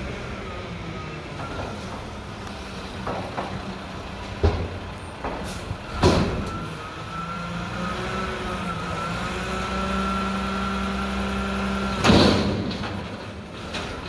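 Diesel engine of a Mack front-loader garbage truck with a McNeilus body, running and pulling in. About halfway through, the engine speeds up and a steady hydraulic whine comes in as the front forks lift a dumpster. A few loud sharp bangs and clanks come through the engine noise, the loudest shortly before the end.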